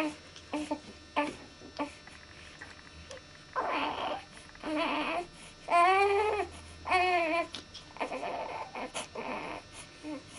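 A baby fussing: four short, whiny cries from about three and a half to seven and a half seconds in, each bending up and down in pitch, followed by softer breathy whimpers.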